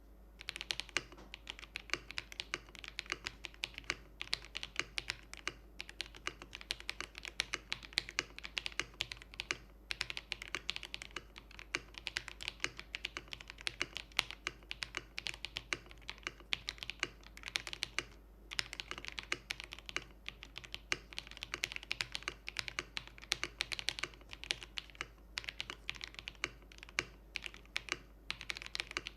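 Typing on a Keydous NJ68 Max mechanical keyboard with a brass plate and lubed Akko V3 Cream Yellow linear switches: fast, continuous keystrokes with a few short pauses.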